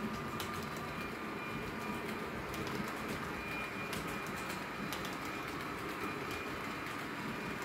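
H0-scale model intermodal freight train rolling past on the layout track: a steady rumble of wheels on rail with irregular sharp clicks, over a faint steady high whine.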